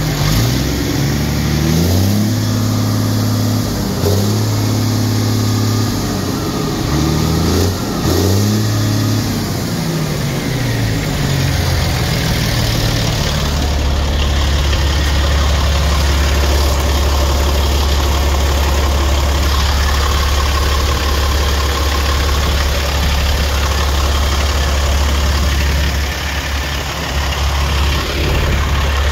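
2006 Peterbilt roll-off truck's Caterpillar diesel engine being revved up and down several times, about every two seconds, then settling about 13 seconds in to a steady low idle.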